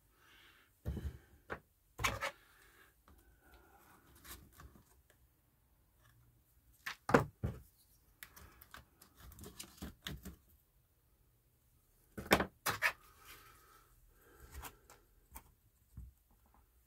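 Handling noise from potting on seedlings: soft scraping and rustling of compost, with sharp clicks and taps of plastic as a small plastic tool, a plastic module tray and plastic pots are worked and moved. The loudest taps come about seven seconds in and twice close together around twelve seconds in.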